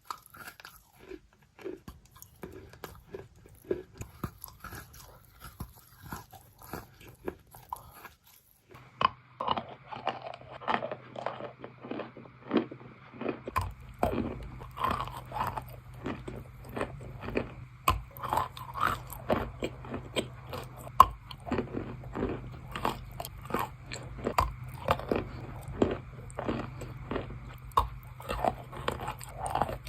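Close-up wet, soft crunching: many quick, irregular crunches one after another. A steady low hum joins under them about 9 seconds in.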